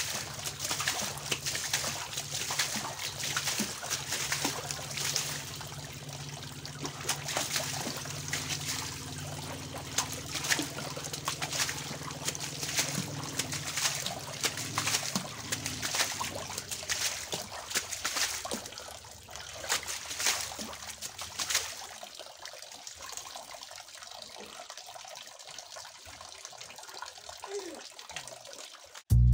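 Water splashing and trickling as a stream pours from a pipe into a shallow fish pond, with irregular splashes from a hand and a plastic dustpan scooping through the water. The splashing thins out over the last several seconds.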